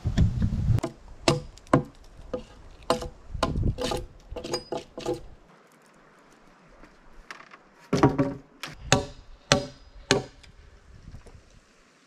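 Sharp wooden knocks of a tool striking roof logs, about a dozen in two uneven series with a quiet stretch of a few seconds between, each with a short ring from the log.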